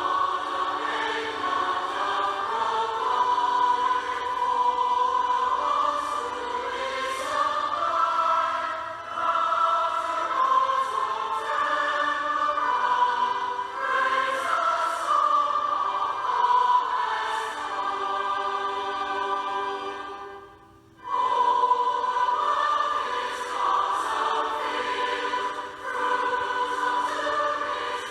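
A choir singing a song for a harvest service, with sustained notes, breaking off briefly about two-thirds of the way through and then starting again.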